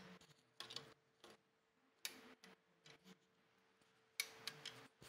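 Light, sharp metallic clicks from a torque wrench on the clutch pressure-plate bolts, coming in small clusters every second or so, as the bolts are torqued in a staggered pattern.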